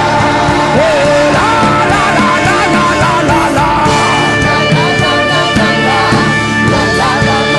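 Slow worship music with sustained chords, and a wordless vocal line sliding and bending in pitch over the first few seconds before the chords carry on alone.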